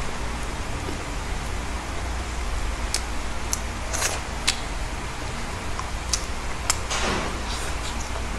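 Eating sounds from fried chicken being pulled apart by hand and chewed: scattered short clicks and mouth smacks, most between about three and seven seconds in, over a steady hiss and low hum.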